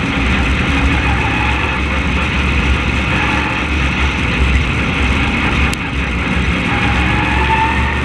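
Open-wheel race car's engine running hard at racing speed, heard from an onboard camera just behind it. The engine eases off briefly about six seconds in, then climbs in pitch as it accelerates again.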